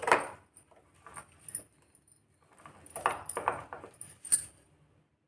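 A spoon scraping and clinking against a small bowl in short, irregular strokes as it mixes grated ginger and jaggery into a crumbly powder.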